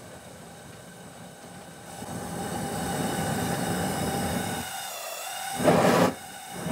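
Propane tube burner running steadily with an open flame, getting louder about two seconds in as more gas is let through. Near the end comes a short, louder burst of sound.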